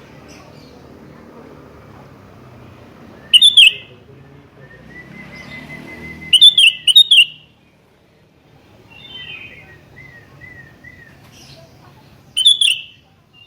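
Sooty-headed bulbul calling in short, loud, falling phrases: one about three seconds in, a quick run of three at six to seven seconds, and another near the end, with softer notes between.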